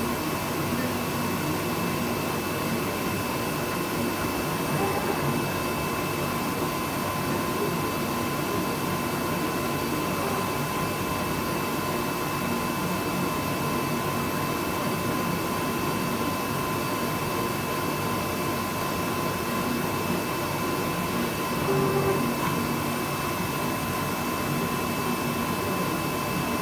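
Flatbed digital cutting plotter running: a steady whirring hiss with a constant high whine as its cutting head travels over a sticker sheet. A brief louder sound comes about 22 seconds in.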